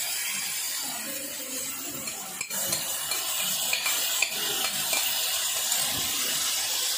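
Marinated beef steak sizzling on a hot grill pan as spiced marinade is poured over it. Metal tongs scrape and click against the plate and the pan a few times.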